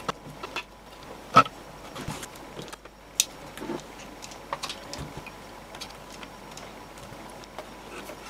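Parts of a Sonos Play:1 speaker being handled and fitted back together: scattered light clicks and knocks of plastic and metal, with a small screwdriver working a screw. The sharpest knocks come about a second and a half and three seconds in.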